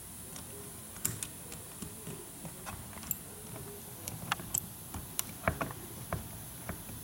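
Scattered small metallic clicks and taps from a hex socket bit being worked by hand on the brake pad retaining bolts of a motorcycle front brake caliper, irregular and coming thicker in the second half.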